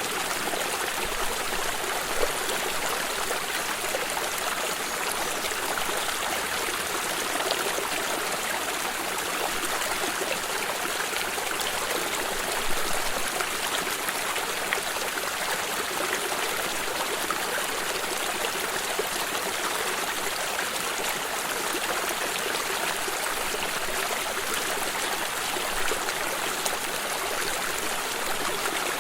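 A water stream running steadily over rocks, an even rushing hiss with small splashes and trickles here and there.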